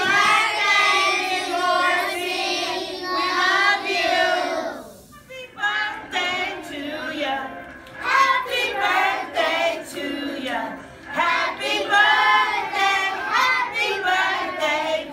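A group of young children singing a birthday song together, with long held notes for the first few seconds, a short break about five seconds in, then quicker singing.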